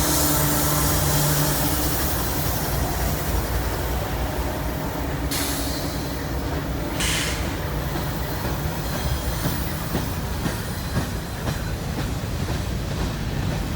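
CSX freight train cars rolling past: a continuous rumble and rattle of steel wheels over the rails, with clicks at the rail joints. A low steady hum stops about two seconds in, and two short hissing squeals come midway.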